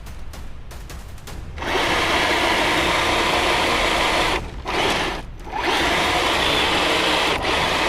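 RGT Land Commander RC crawler's electric motor and gearbox whirring under throttle, starting about a second and a half in and cutting out briefly twice before picking up again.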